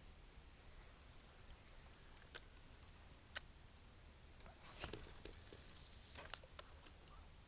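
Near silence at the waterside, with faint high chirping in the first three seconds and two sharp clicks. About five seconds in comes a short rustle with a few clicks as the fishing rod is handled.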